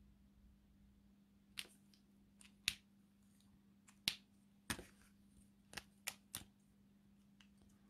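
Copic alcohol markers being handled: about eight sharp plastic clicks and taps spread over a few seconds, starting about a second and a half in, as caps are snapped and markers are set down and picked up.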